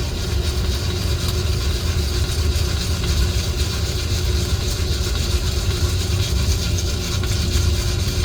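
Coffee roaster running steadily: a low motor-and-fan rumble with a dense rushing noise over it and a fine, constant rattle of beans tumbling in the drum.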